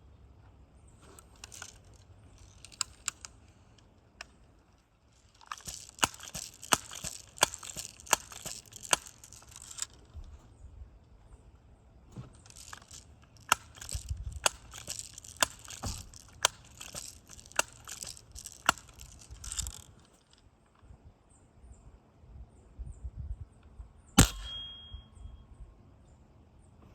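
A long stretch of rustling with many small irregular clicks, then near the end a single sharp BB-gun crack with a short ringing ping.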